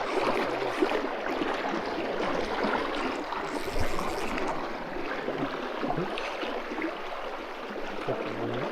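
River water rushing steadily over a stony bed, a dense even hiss, with a brief brighter splash-like burst about halfway through.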